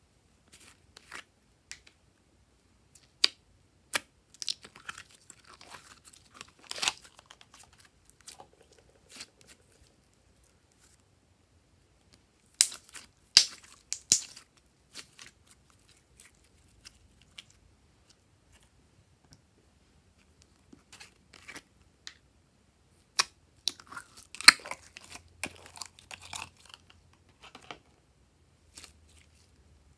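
Glossy slime squeezed and pulled by hand: sticky clicks and crackling pops that come in three bunches, with quiet gaps between.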